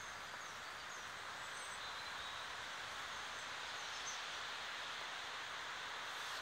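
Shallow river water running over a rippled stony bed: a steady rushing hiss. Faint, short bird chirps sound now and then during the first four seconds or so.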